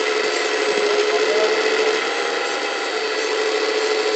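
Hydraulic pump of a 1:14.5-scale Wedico RC CAT 345 D excavator running with a steady mechanical whine while the boom and bucket work.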